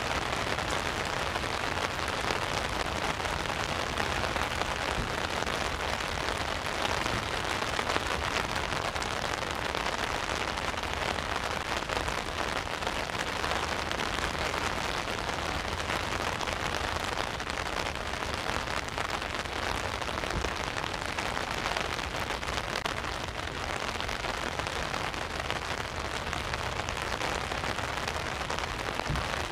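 Steady rain falling on an umbrella overhead and on the water around it, an even, unbroken hiss with a low rumble beneath.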